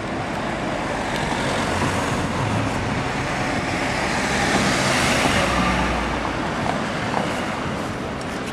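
Road traffic on a city street: a motor vehicle passing close by. The noise swells to its loudest a little past the middle, then eases off.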